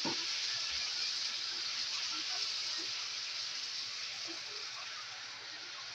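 Water hitting a hot cast-iron skillet with salmon fillets in sauce, sizzling and hissing hard as steam boils off, slowly dying down.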